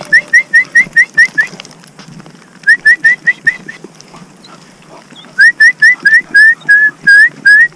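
Whistling to call a pack of deer hounds: quick runs of short, sharp whistle notes, each rising in pitch, about five or six a second. There are three runs with short pauses between them, and the notes draw out longer near the end.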